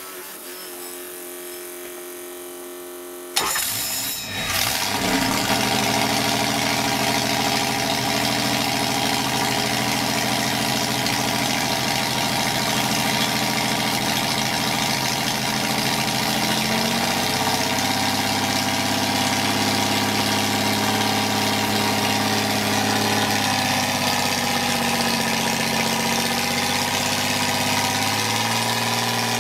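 Freshly built BMW 319 2.0-litre straight-six on a dyno, started for the first time: after a few seconds of steady hum it fires suddenly and catches, then runs steadily at idle, its speed shifting slightly a couple of times.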